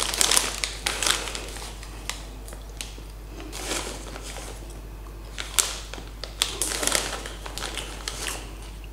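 A freshly opened plastic popcorn bag crinkling in short, scattered spells as it is handled and turned over.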